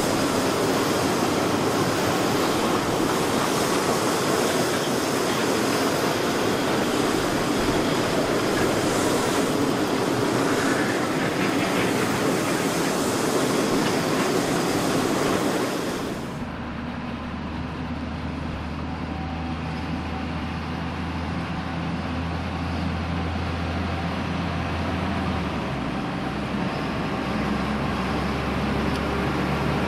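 A long rake of sugar cane bins rolling past on a narrow-gauge cane tramway, wheels clattering on the rails. About halfway through this gives way suddenly to the steady low running of a diesel cane locomotive's engine, whose pitch shifts near the end.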